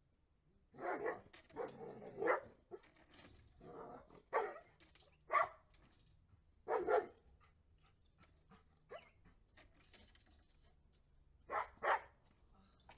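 Puppy barking in short, sharp barks during rough play: a quick cluster in the first few seconds, single barks every second or so after, then a close pair near the end.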